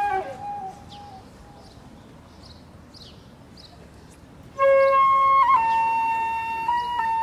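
Slow instrumental music with long held notes. A held note fades out about a second in; after a quiet stretch, loud sustained notes come in at about four and a half seconds and slide to a slightly lower pitch a second later.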